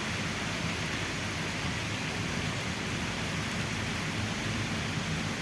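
Heavy rain pouring down steadily, a dense even hiss of a hard tropical downpour.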